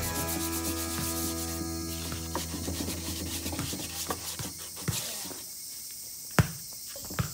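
Sandpaper rubbing back and forth over a bare wooden tabletop, a steady rasping scrub. There is a sharp knock near the end.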